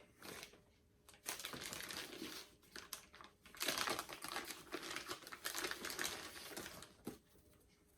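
Paper rustling as a hardcover book is handled and leafed through, in two spells of crinkling with a short tap near the end.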